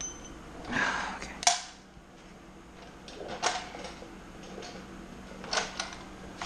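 Metal tools and exhaust hardware being handled: a few separate sharp metallic clicks and knocks, the loudest about a second and a half in, over a faint steady hum.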